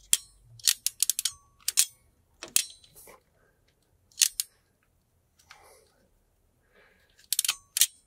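Hand crimping tool squeezing crimp connectors onto wires: sharp metallic clicks and snaps, a quick run of them in the first second or so, single ones spaced a second or so apart, and another quick run near the end.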